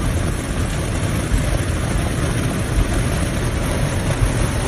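Heavy rain beating on a vehicle's roof and windshield over the low rumble of its idling engine, heard from inside the cab: a steady, even rushing noise.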